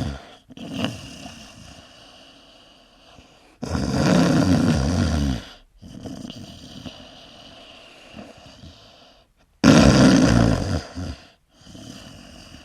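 A person snoring: two loud snores, each about two seconds long and about six seconds apart, with quieter breathing between them.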